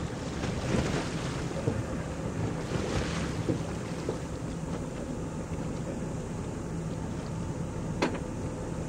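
Boat engine running steadily under the rush of wind buffeting the microphone and the wash of choppy sea, with a brief click near the end.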